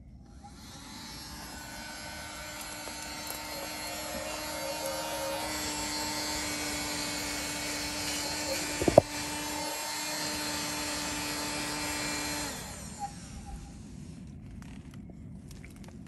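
Small handheld vacuum cleaner running steadily as its nozzle sucks pollen out of an open dragon fruit flower for hand pollination. It switches on just after the start and cuts off about twelve seconds later, with its pitch dropping slightly about five seconds in and a brief sharp knock near nine seconds in, the loudest moment.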